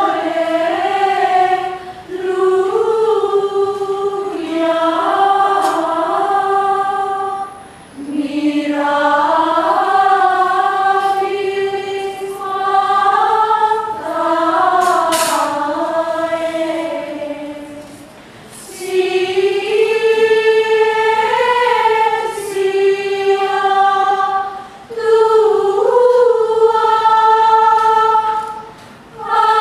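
Women's choir singing Gregorian chant, unaccompanied, as a single melodic line in slow, flowing phrases. Short breaks for breath fall between phrases, about five times.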